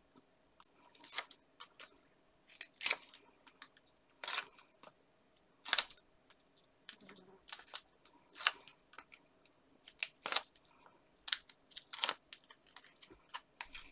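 Paper and foam adhesive pads being handled by hand while foam pads are stuck onto a paper cutout: short, crisp, irregular snips, clicks and crinkles with quiet gaps between them.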